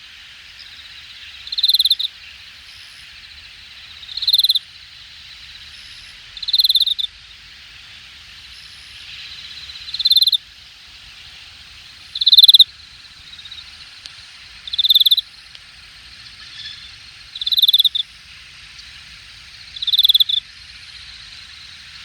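Late-summer grass insects calling in a steady high-pitched chorus. One louder insect gives a short call of about half a second, repeating roughly every two and a half seconds.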